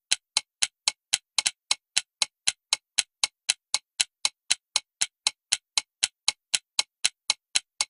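Alarm clock ticking at an even pace, about four sharp ticks a second.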